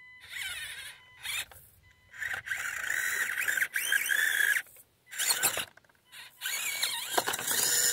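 Axial SCX24 micro RC crawler with an upgraded P90 motor, its small electric motor and gears whining high in several short bursts of throttle, the pitch rising and falling as it crawls over rocks.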